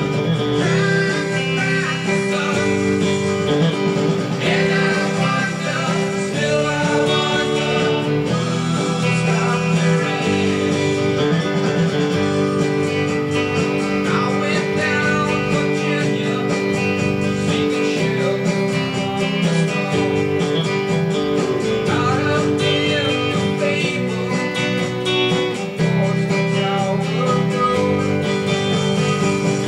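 Electric guitar strumming steady country-rock chords: a Mexican-made Fender Telecaster played through a Fender Blues Deluxe Reissue tube amp and a Zoom G2.1u multi-effects pedal.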